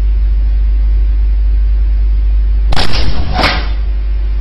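A loud, steady low hum, with two short noisy bursts about three seconds in.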